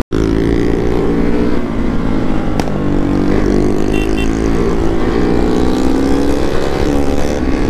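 KTM RC 200's single-cylinder engine running under way, heard from the rider's seat: its note falls over the first few seconds and then climbs again, with wind rush on the microphone underneath.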